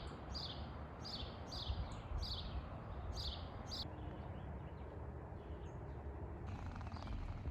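A bird chirping a string of short, falling notes, about two a second, which stops about four seconds in, over a steady low outdoor background noise.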